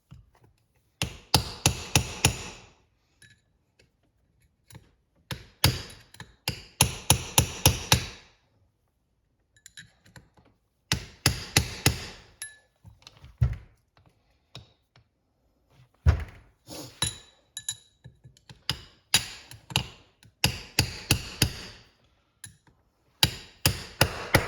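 Hammer striking a steel pin punch to drive an old bushing out of an automatic transmission's planetary assembly. The blows come as sharp metallic taps, several a second, in bursts separated by short pauses. The bushing is working its way out under the blows.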